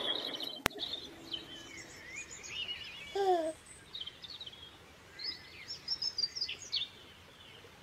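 Small birds chirping and twittering over and over, with a sharp click just under a second in and a short falling voice-like coo about three seconds in.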